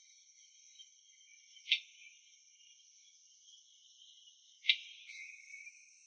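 Steady, high-pitched chirring of an insect chorus, broken by two sharp knocks about three seconds apart.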